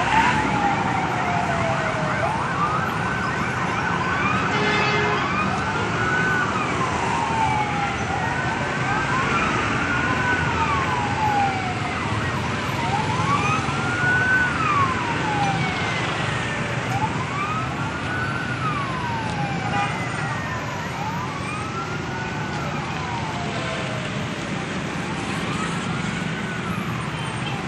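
A siren wails in repeated rising and falling sweeps, about one every two seconds and at times overlapping, over the steady noise of engines in heavy traffic.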